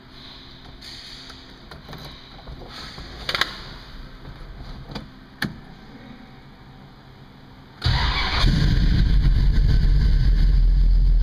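1968 Dodge Coronet R/T's V8 engine starting, heard from inside the cabin: a few sharp clicks, then about eight seconds in the engine fires suddenly and runs deep and loud.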